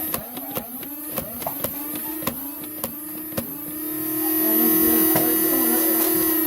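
Motorised flywheel Nerf blaster whining, firing a quick string of darts in the first few seconds, with a click at each shot as the whine dips, then revving steadily and louder near the end.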